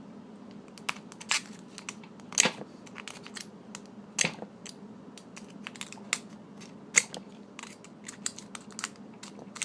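Irregular sharp metallic clicks and scrapes of lock-picking tools working in a cheap, weathered padlock that does not open, with two louder snaps about two and a half and seven seconds in. The owner suspects the padlock has seized up from weathering.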